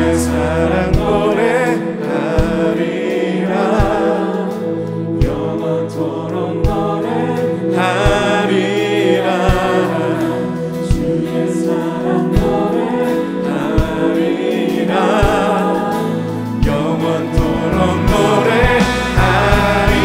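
Live contemporary worship music: several voices singing together over acoustic guitars and piano, with a steady drum beat.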